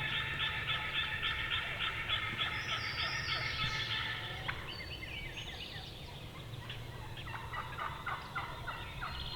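Wild turkeys gobbling: a rapid rattling run of calls for the first half, then quieter gobbling again later on.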